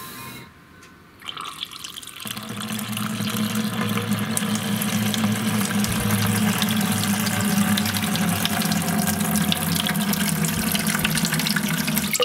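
Water from a rain barrel's brass spigot pours through a paper coffee filter set in a metal mesh strainer and splashes into an empty plastic 5-gallon bucket. The flow starts about a second in, builds over the next second, then runs steadily.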